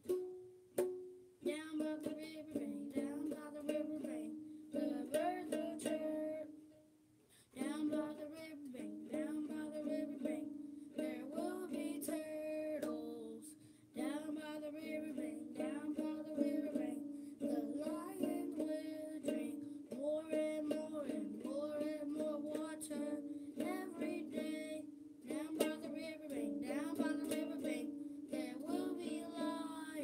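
A ukulele strummed in chords while a child sings along, with a short break about seven seconds in.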